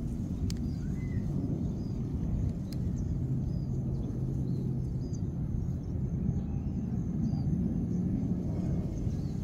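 Steady low outdoor rumble, with small birds chirping faintly every second or so and a couple of light clicks in the first few seconds.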